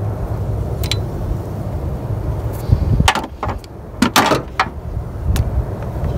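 Sharp metal clinks and clicks of a socket and wrench being handled and taken off a just-loosened camshaft pulley bolt, loudest in a short clatter a little past the middle, over a steady low rumble.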